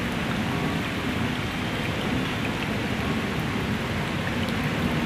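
Heavy rain pouring steadily onto flooded paving, puddles and trees, an even rushing hiss with no break.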